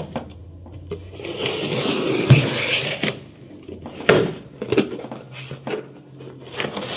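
Knife slicing through a cardboard shipping box: a long scraping cut lasting about two seconds, then several sharp knocks and clicks as the box is handled.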